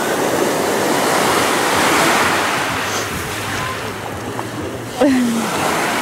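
Small sea waves breaking and washing up a fine-pebble beach, one surge swelling and easing off. A short voice cuts in about five seconds in.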